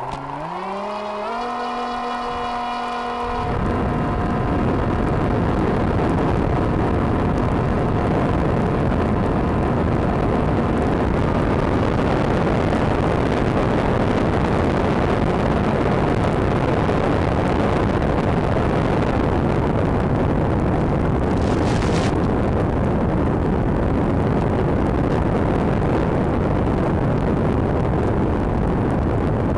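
Electric motor and propeller of a Banshee FPV flying wing, heard through its onboard camera: a whine that rises in pitch over the first few seconds as the throttle comes up, then a steady rush of propeller and wind noise in flight.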